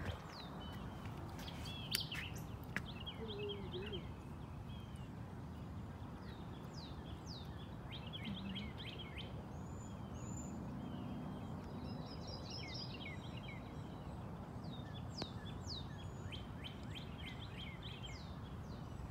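Several songbirds chirping and trilling in the trees, in short repeated phrases, over a steady low outdoor rush. A couple of sharp clicks about two seconds in.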